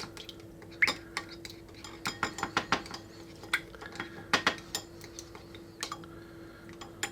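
A spoon clinking and tapping irregularly against a container while slime powder is added to and mixed into Diet Coke.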